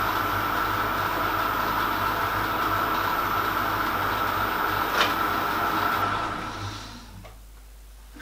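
Metal lathe running steadily while a hand-held aluminium lap charged with 1-micron diamond compound is worked along a spinning quarter-inch stainless steel piston rod, with one sharp click about five seconds in. About seven seconds in the lathe is switched off and the sound fades as it runs down.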